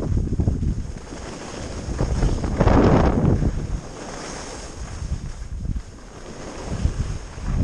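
Wind rushing over an action camera's microphone during a fast run down a groomed ski slope. Under it is the swish of carving turns on snow, swelling about three seconds in and again near the end.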